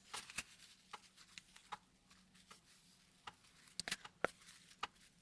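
Faint, irregular rubs and small clicks of a wet screen-cleaning wipe being worked over a smartphone's glass screen, with the phone being handled.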